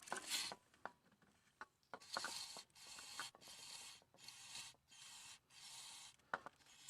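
Aerosol can of CRC QD electronic cleaner spraying in about six short hissing bursts, each pin hole of the connector blasted in turn, after a few small clicks in the first two seconds.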